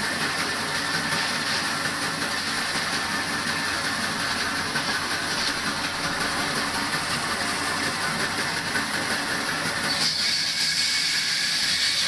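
Band saw running and cutting through a thick stack of corrugated cardboard evaporative-cooler pads, a steady noise of blade through cardboard. About ten seconds in the sound turns brighter and higher as the lower part drops away.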